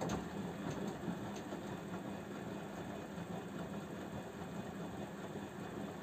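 Samsung WF0800NCE front-loading washing machine's motor turning the drum during a drum-cleaning cycle. It starts up at the very beginning with a few clicks, then runs steadily with a low hum.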